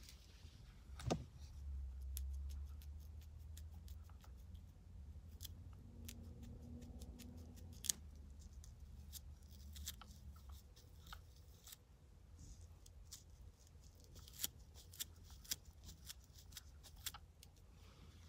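Fingernails and a plastic comb scratching and picking at the scalp right by the microphone, making irregular sharp scratchy clicks as dandruff flakes are scraped loose.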